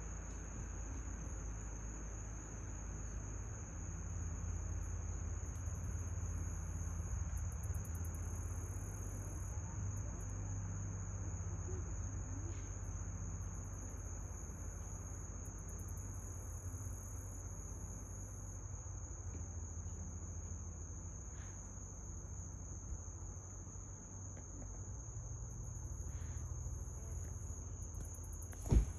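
Crickets trilling steadily in a continuous high-pitched chorus, with other insects buzzing in pulses above it on and off, over a low rumble. A single sharp click sounds just before the end.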